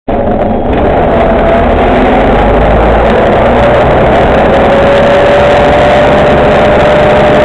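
MCW Metrobus Mk2 double-decker under way, heard from inside the saloon: steady engine and drivetrain noise with a whine running through it.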